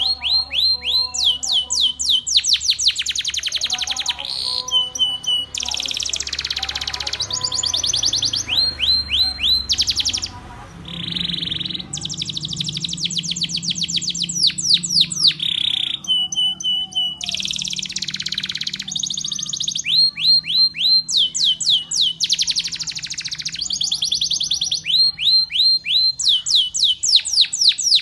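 Canary singing a long song of fast trills: runs of rapidly repeated downward-sweeping notes, several different rolls in turn, broken by a brief pause about ten seconds in.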